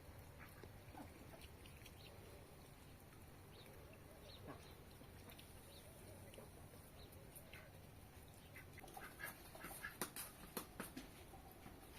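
Ducks quacking faintly, in short scattered calls, with a louder run of sharp sounds about three quarters of the way through.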